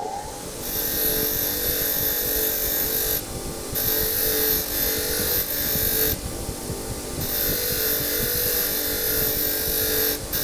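A small electric power tool runs steadily while cleaning a greasy part, with a high hiss over its hum. The hiss drops out twice, for about half a second and then about a second.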